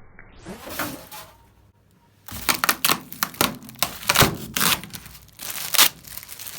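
Packaging being handled and pulled about: a dense run of sharp crackles, clicks and knocks, starting about two seconds in.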